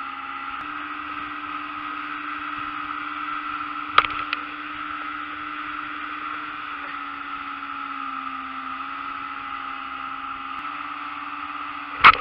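Outboard motor running steadily at speed as the boat planes, over the rush of water from the wake and wind. A sharp knock about four seconds in, and a louder one just before the end.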